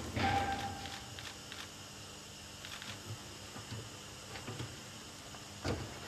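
Steady background hum with scattered light knocks and clicks, and a short high tone about a quarter of a second in.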